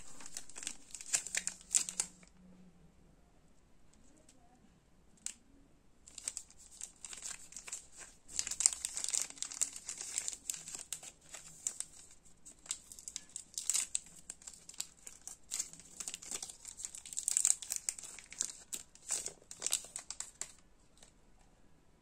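Plastic chocolate-bar wrapper crinkling in the hands: short bursts for about two seconds, a pause of a few seconds, then nearly continuous crinkling that dies away shortly before the end.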